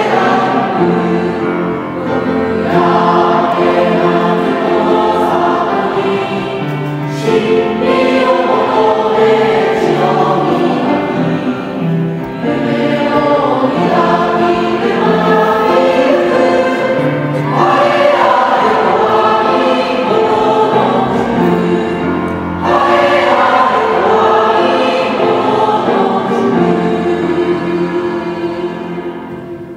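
A choir of junior high school students singing with grand piano accompaniment, in phrases of about five seconds with short breaks between them. The singing dies away near the end.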